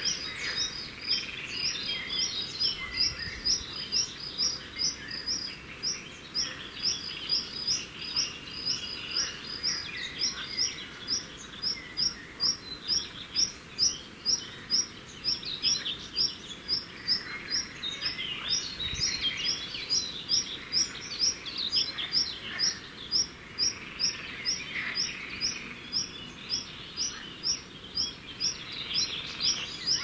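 Songbirds singing: a short, high note repeated about twice a second throughout, over other varied chirps and song.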